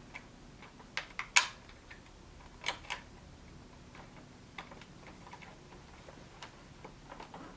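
Scattered small clicks and taps of typewriter parts being handled and fitted together by hand, a few at irregular intervals, the sharpest about one and a half seconds in.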